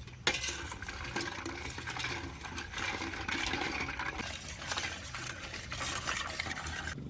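Food being stirred and scraped by hand, a busy, uneven noise that starts suddenly just after the start and cuts off suddenly near the end.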